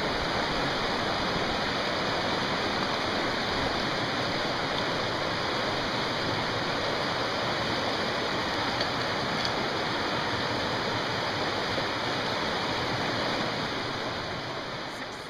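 Steady rushing of a fast-flowing river over rocks, fading out near the end.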